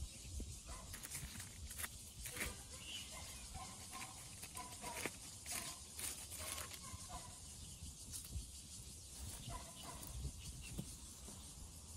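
Faint outdoor ambience with scattered light clicks and rustles from handling the push mower's trimmer head and nylon line, and a few faint short animal calls in the background.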